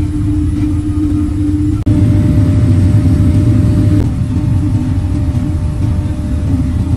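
Steady low mechanical rumble with a constant hum, broken by a sudden brief drop about two seconds in.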